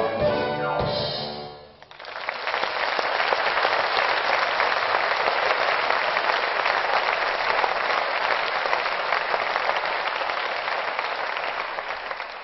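Orchestra with drum kit ends the piece on a final chord with drum hits, cutting off about two seconds in; then a large audience applauds steadily, fading out near the end.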